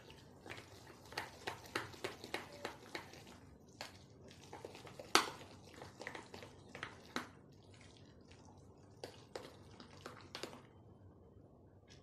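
Spoon stirring thick semolina-and-curd batter in a glass bowl: irregular clinks of the spoon against the glass among wet squelching of the batter, with one louder clink about five seconds in.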